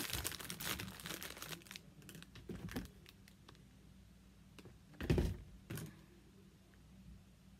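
Crinkling and rustling of glitter cardstock cutouts being handled, then a sharp knock about five seconds in as a cordless glue gun is set down on the table, with a lighter knock just after.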